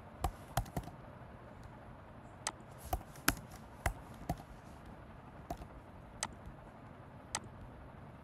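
Scattered single keystrokes on a computer keyboard: about a dozen sharp clicks at irregular gaps, with no steady typing run.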